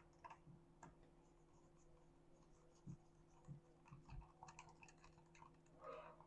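Faint, scattered small clicks and scrapes from the Beeman BP.50 launcher's housing being handled and gently pried apart, the clicks coming more often in the second half.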